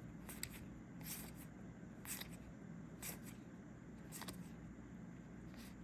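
Trading cards being flipped through by hand: soft card-on-card slides and flicks about once a second, over a faint steady room hum.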